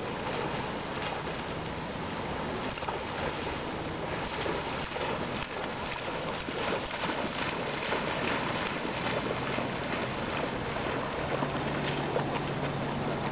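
Springer spaniel splashing as it bounds through shallow river water: a continuous rush of sprays and slaps, mixed with wind on the microphone.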